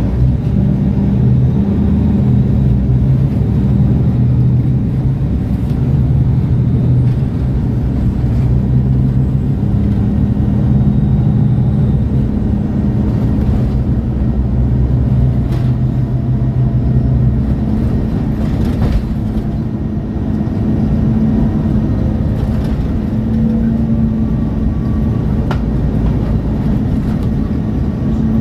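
MAN A23 Lion's City G articulated city bus's six-cylinder diesel engine idling steadily at a stop, with a few faint clicks.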